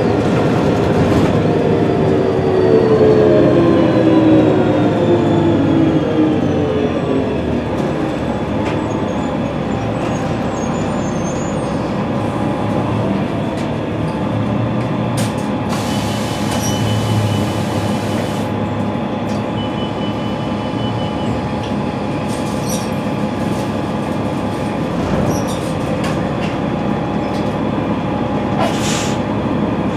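Interior of a 2006 New Flyer D40LFR diesel bus, with a Cummins ISM engine and Voith D864.3E transmission, under way. A drivetrain whine falls in pitch over the first several seconds, then gives way to a steady running drone.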